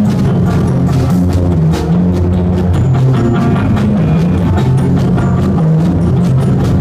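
Live band playing: a drum kit struck with sticks, with many quick strokes, over a low, moving electric guitar line.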